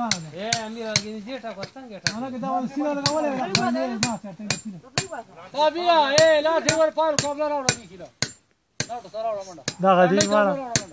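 A man singing in long, bending notes to a steady beat of sharp knocks, about two a second, with a short break near the end.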